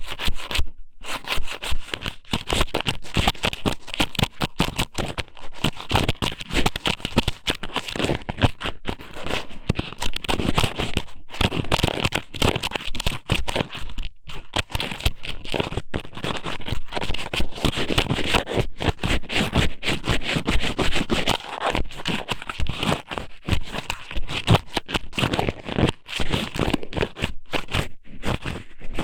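Thin strips of squid (ika somen) pushed into and rubbed around a binaural ear microphone: continuous close scratching and crackling, broken by a few brief silences.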